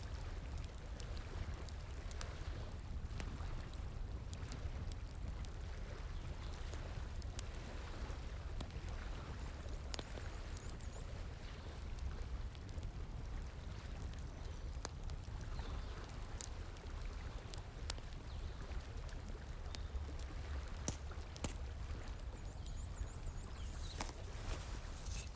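Wood fire crackling, with scattered sharp pops, over the steady rush of flowing water.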